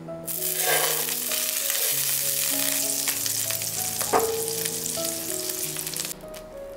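Butter sizzling as it melts and foams in hot oil in a nonstick frying pan, stirred with a spatula; the sizzle starts as the butter goes in and cuts off suddenly about six seconds in, with a sharp click about four seconds in. Soft background music plays underneath.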